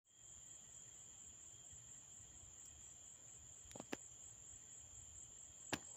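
Faint, steady high-pitched chirring of crickets, with two soft clicks about two-thirds of the way through and another near the end.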